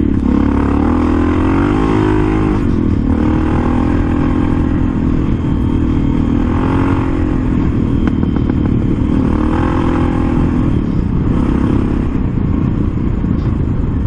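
Suzuki DR650SE single-cylinder dual-sport engine running under way, its revs rising and falling several times as the throttle is opened and eased off, with wind noise over the helmet microphone.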